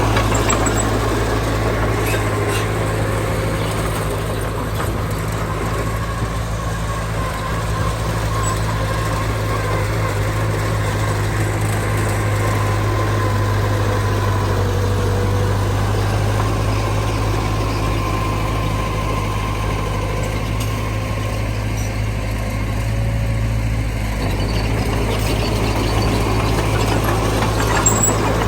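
Heavy diesel engine of earth-moving machinery running steadily with a deep, even hum.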